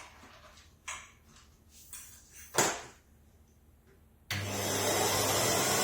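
A few knocks and clicks of handling, the loudest about two and a half seconds in. About four seconds in, a Numatic Henry vacuum cleaner switches on and its motor starts up with a whine rising in pitch.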